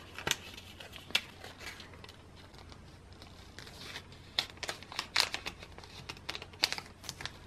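Crinkling and rustling of plastic photocard sleeves and binder pocket pages as cards are handled and pushed in. A few crinkles come near the start, then a busier run of them from about four seconds in.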